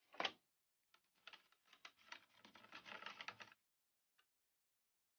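Plastic three-disc CD changer tray from a Sony MHC-RX99 stereo set down with a single knock. It is then shifted and positioned on the work surface, with a run of light scraping and clicking for about two and a half seconds.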